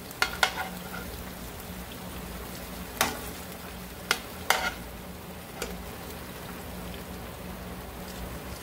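Sliced beef sizzling steadily in a frying pan, with a handful of sharp clinks of a metal utensil against the pan.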